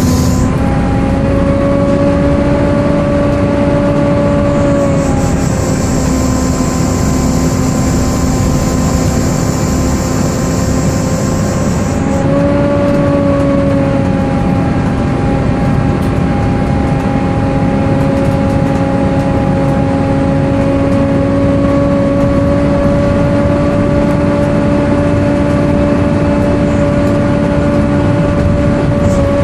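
Volvo B7TL bus running, its cooling fan giving a loud, screechy 'hoover' whine: a steady whining tone that dips and shifts pitch slightly a couple of times. A high hiss joins at about five seconds in and stops at about twelve seconds in.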